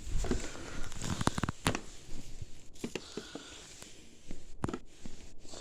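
Firework packages being handled: a quick run of knocks and rustles in the first two seconds, then a few scattered taps.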